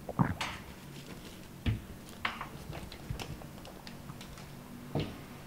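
Someone rummaging low beside a wooden cabinet: a few sharp knocks and thuds, with small clicks and taps between them, over a faint steady hum.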